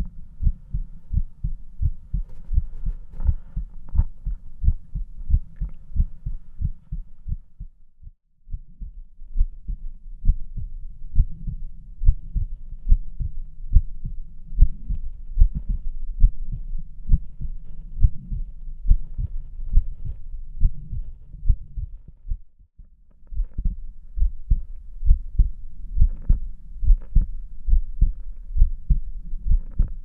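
A human heartbeat heard through a stethoscope: a steady, regular lub-dub of low thumps, calm and clear, with two brief breaks about 8 and 23 seconds in.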